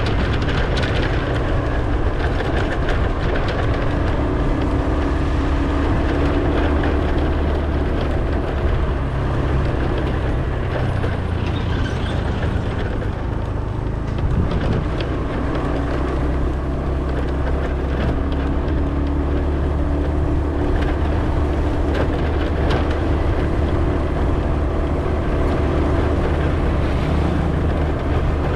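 Steady engine and road noise from a vehicle being driven. The engine note eases off about halfway through and picks up again a second or so later.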